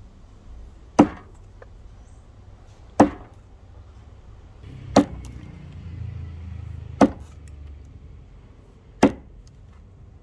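Axe chopping into wood: five sharp strikes about two seconds apart.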